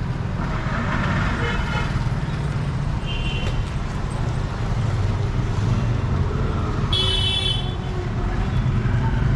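Busy street traffic: a steady low rumble of engines, with a short vehicle horn toot about three seconds in and a louder, longer one about seven seconds in.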